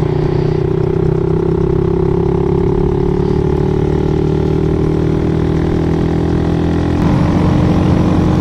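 Motorcycle engine running steadily, its pitch sinking slowly as the bike slows, with a change in the engine note about seven seconds in.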